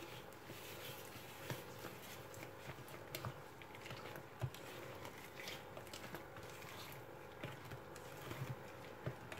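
A silicone spatula folds flour into thick cake batter in a mixing bowl. It makes faint, irregular soft scrapes, squelches and light taps against the bowl.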